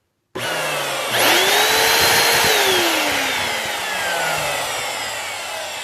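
The rebuilt 10-amp motor of a Bissell PowerForce Bagless 6583 vacuum cleaner switches on and runs. Its whine rises sharply to speed about a second in, then slowly falls in pitch and level as the motor winds down.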